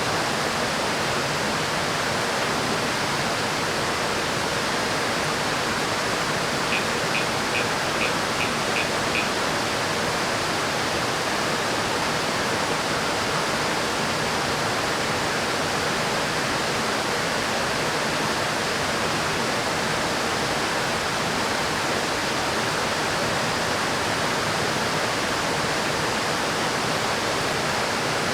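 River water rushing, a steady, even hiss. About seven seconds in comes a short run of about seven quick high ticks.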